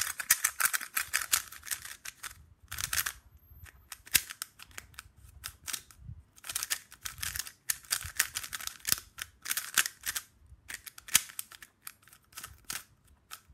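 MoYu Weilong GTS3M magnetic 3x3 speedcube being turned quickly by hand: dense runs of plastic clicks and clacks as the layers turn and snap into place, in bursts with short pauses.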